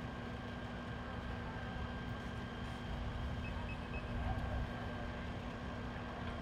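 Engine running steadily, a low rumble with a constant hum. Three short, faint beeps come about three and a half seconds in.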